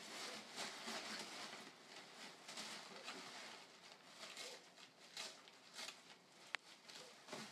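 Brown packing paper rustling and crinkling in irregular short rustles as two dogs root through a pile of it and chew it. One sharp click near the end.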